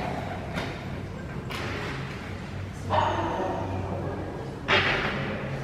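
Dogs barking a few times, sharp barks that echo in a large hall, the loudest about three seconds in and near the end, over a low steady hum.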